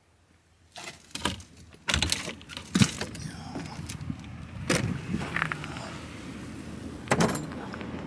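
A run of sharp clicks and knocks, about seven in all, over a steady low rumble that comes in about two seconds in.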